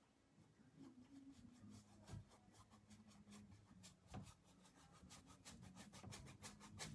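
Faint, quick strokes of a paintbrush tip on canvas, blending paint, coming faster toward the end.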